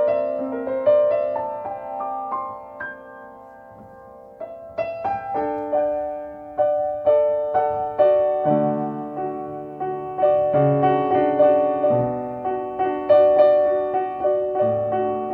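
Solo piano music tuned so that C sounds at 528 Hz, played slowly in single decaying notes. It thins to a few quiet notes about two to four seconds in, then fills out with low bass notes from about eight seconds.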